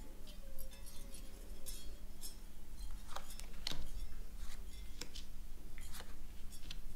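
Fortune-telling cards being handled and dealt from a deck onto a cloth-covered table: a scattered series of short, sharp clicks and light clinks.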